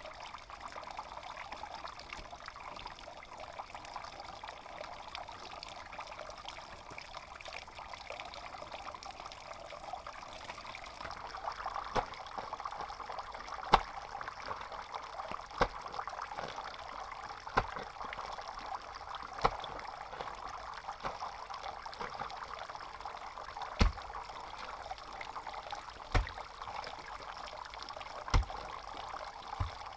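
Water trickling and pouring steadily, getting a little fuller about a third of the way in. Over it, from about halfway, come short sharp knocks every two seconds or so.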